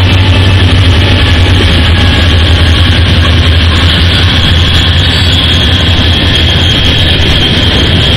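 CSX diesel-electric freight locomotives passing close by, their engines running loud and steady with a thin high-pitched whine over the rumble.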